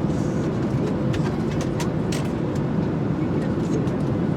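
Airliner cabin noise in flight: the steady low drone of the engines and airflow, with a few light clicks.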